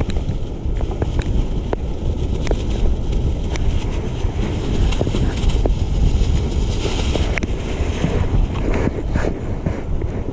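Wind buffeting the microphone in a steady low rumble, with scattered small clicks and the crinkle of a plastic bag being handled.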